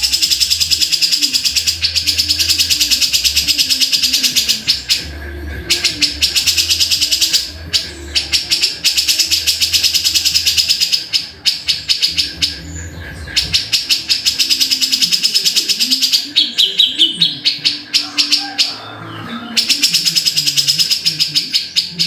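Grey-cheeked bulbul (cucak jenggot) calling in long runs of rapid, dry chattering notes, with short breaks between the runs.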